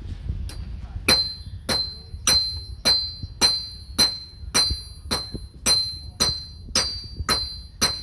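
A hammer striking metal on an anvil in a steady rhythm, a little under two blows a second, each blow leaving a short high ring. The metal has just been heated, so this is likely hand-forging.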